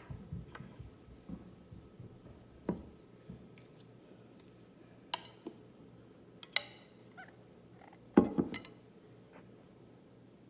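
Tableware being handled: a few separate knocks and clicks, one ringing clink about six and a half seconds in, and the loudest cluster of knocks about eight seconds in.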